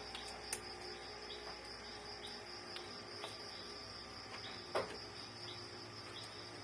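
Crickets chirping steadily, with two short clicks, one about half a second in and one near five seconds in.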